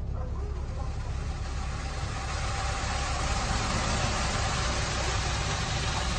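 Automatic car wash machine spraying water over the car, heard from inside the cabin as a hiss that grows louder about two seconds in, over a low steady hum.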